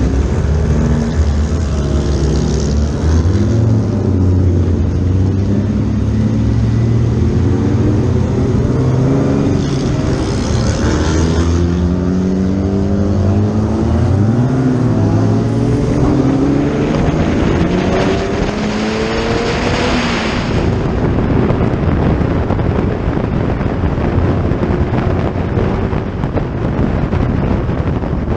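Historic racing cars' engines revving on track, several at once, their pitch climbing and then dropping sharply at gear changes. One car goes by loudest about two-thirds of the way through.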